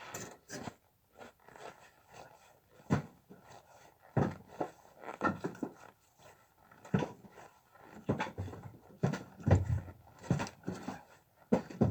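Split firewood logs knocking against one another as they are stacked, a dozen or so separate, irregular knocks.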